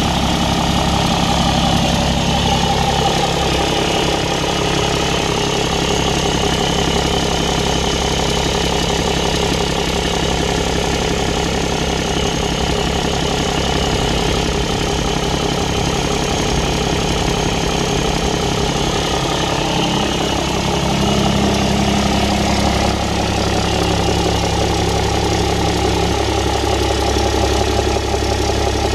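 BMW M57D30TU 3.0-litre straight-six turbodiesel running warm, with an irregular 'tsä... tsä-tsä' puffing noise from the passenger-side exhaust manifold area, which the owner suspects is a cracked exhaust manifold or a faulty EGR valve.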